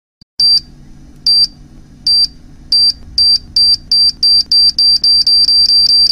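Electronic countdown-timer beeping sound effect: a high, sharp beep repeating faster and faster, from less than one a second to several a second, over a low steady drone.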